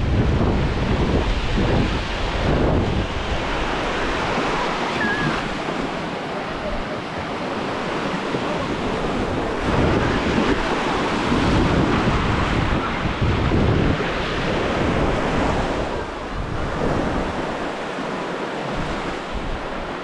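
Small waves washing onto a sandy shore, with wind buffeting the microphone in gusts.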